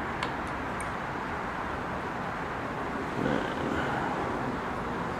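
Steady background noise, with a few faint clicks in the first second as a small screwdriver works a screw on a model hit-and-miss engine. A brief low hum, like a voice, a little past halfway.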